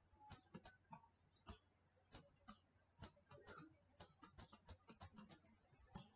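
Faint, irregular light clicks and taps, well over a dozen, from handwriting input on a digital whiteboard, heard over near silence.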